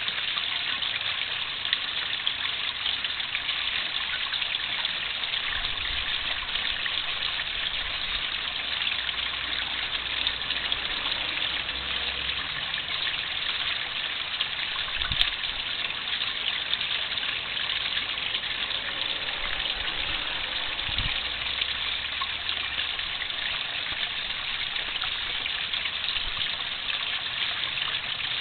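Steady splashing of running water into a garden fish pond, unbroken and even throughout.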